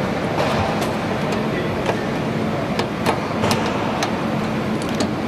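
Factory machinery noise: a steady mechanical hum and hiss with scattered sharp clicks and clanks, about eight of them at uneven intervals.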